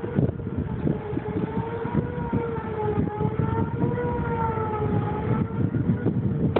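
Outdoor storm-warning siren sounding in the distance: one long steady tone that wavers gently in pitch. Wind buffets the microphone throughout.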